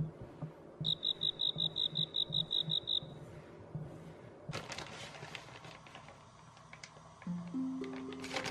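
A quick run of about a dozen high chirps over two seconds, followed by the scraping and tapping of a spatula stirring batter in a glass mixing bowl. Plucked-string music starts near the end.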